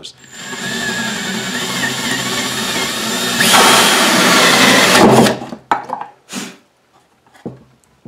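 Cordless drill turning a hole saw with a pilot bit through a pine board to cut a round hole. The motor runs steadily, gets louder and harsher about three and a half seconds in, and stops about five seconds in, followed by a few light knocks.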